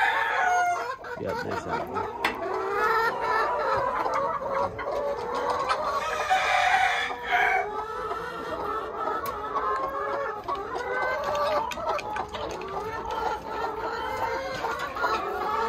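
Several brown laying hens clucking continuously in a nest box as a hand reaches in among them, their calls overlapping. One louder, higher call comes about six to seven seconds in.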